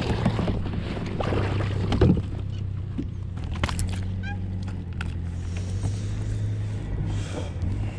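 Splashing of a hooked largemouth bass at the side of a plastic fishing kayak, then knocks and handling noises on the hull, with a louder thump about two seconds in, over a steady low hum.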